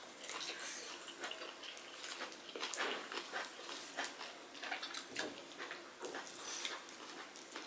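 Close, wet eating sounds of people eating rice and curry with their hands: chewing and lip smacks with the squish of fingers mixing the food, heard as many short, irregular clicks.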